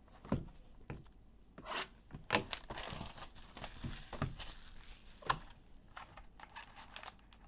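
Plastic shrink wrap being torn off a sealed trading-card box and crinkled in the hands, with several sharp snaps along the way and a longer stretch of crinkling about halfway through.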